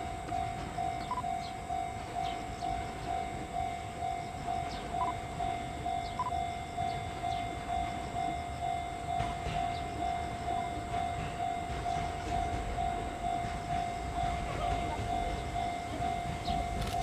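Level-crossing warning bell ringing in rapid, even strikes, while an approaching electric commuter train's rumble grows louder toward the end.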